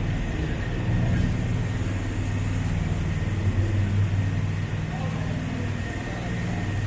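City street traffic: motor vehicle engines running, a steady low hum over the general street noise.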